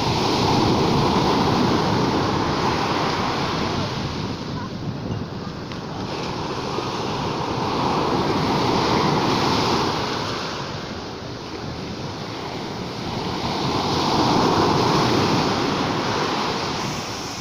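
Sea waves surging and ebbing, swelling three times in a slow rhythm several seconds apart.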